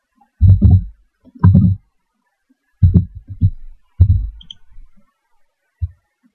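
A series of loud, low thumps on the microphone, several coming in quick pairs and a last single one near the end, as keys are typed and the mouse is clicked at the computer.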